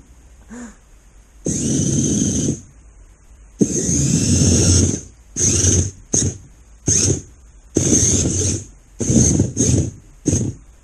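GJS Ganker robot's arm servo motors whirring in start-stop bursts as the arms move: two longer runs of about a second, then a string of shorter ones.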